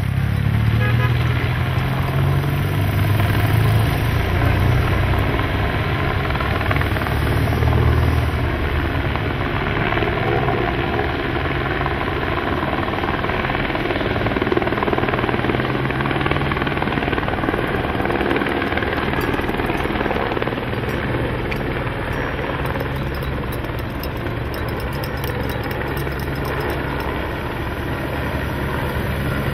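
A helicopter flying, its rotor chopping steadily over a low engine hum.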